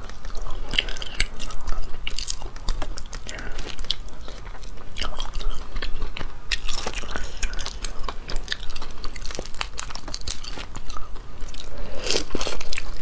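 Close-miked biting and chewing of shell-on spicy crayfish: irregular crisp cracks and crunches as the shells are bitten and pulled apart, with wet chewing between them.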